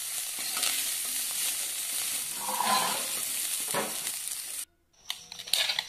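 Chicken keema sizzling in a frying pan while a steel spatula stirs and scrapes it, with a few louder scrapes. The sound breaks off abruptly near the end.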